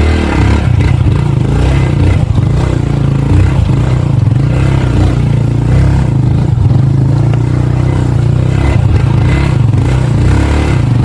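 Motorcycle engine running steadily under load on a rough dirt trail, with clattering and knocking from the bike over the bumps.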